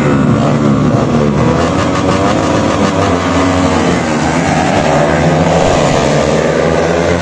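Several 220 cc four-stroke racing motorcycles at full throttle, their engine notes overlapping and rising and falling in pitch as they accelerate and change gear.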